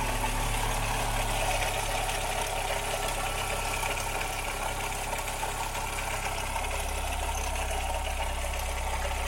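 Ford Ka's Endura four-cylinder engine idling steadily with a very bad noise. The mechanic suspects the water pump.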